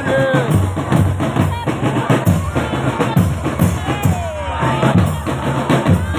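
Marching drum band playing: bass drums and snare drums beat a dense, steady rhythm, with a few voices calling over it.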